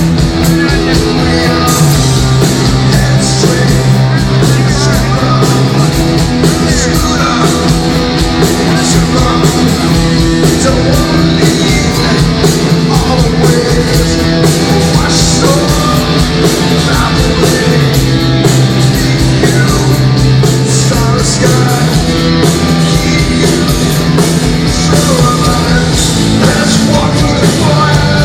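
Rock band playing live, recorded from the audience: loud distorted electric guitars, bass and drums, with a singing voice over them. The low notes shift every few seconds as the riff changes chord.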